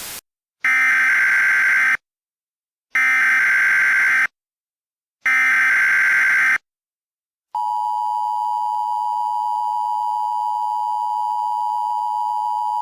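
Emergency Alert System broadcast opening: a brief burst of static, then the three SAME header data bursts, each a harsh digital screech about a second and a half long, followed by the steady two-tone EAS attention signal held for about five seconds.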